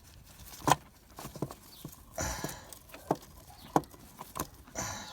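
Irregular light knocks and clinks, about a dozen over five seconds, with a couple of short scraping rustles: hands and a loose nut working against the starter motor and its mounting under a Vauxhall Astra 1.7 turbo diesel.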